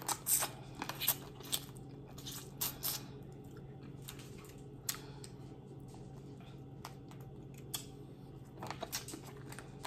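Close-up eating of boiled crawfish: scattered sharp clicks and wet smacks as shells are cracked and peeled and the meat eaten, bunched in the first few seconds and again near the end. A low steady hum runs underneath.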